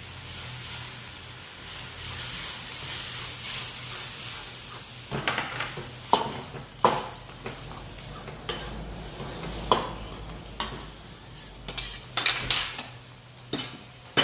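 Sauce sizzling in a wok while a metal ladle stirs beaten egg into it. From about five seconds in, the ladle clacks and scrapes against the wok several times.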